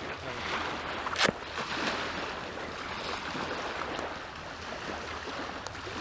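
Small waves lapping on a sandy shoreline at the water's edge, with one sharp click about a second in.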